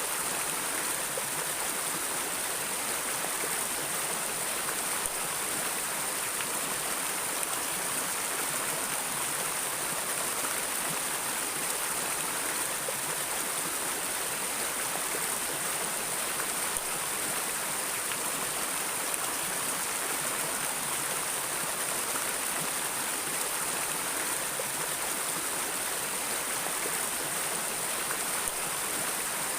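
River water flowing, a steady, even rush with no breaks.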